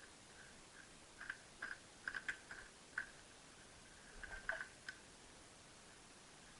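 Light clicks and small knocks of car seat parts being handled and fitted together, in two short clusters, over a faint regular ticking.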